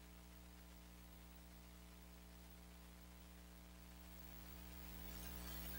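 Near silence: room tone, with a faint steady electrical hum and hiss from the sound system that grows slightly louder near the end.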